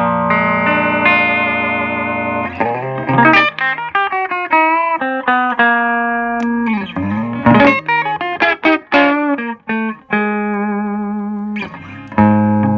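Electric guitar played clean through a Fender 5E3 tweed Deluxe-style tube amp kit with 6V6 power tubes and a 5Y3 rectifier, into a Vintage 30-style speaker. Held, ringing chords open the passage, then a run of quick single-note licks with string bends, and a strummed chord rings again near the end.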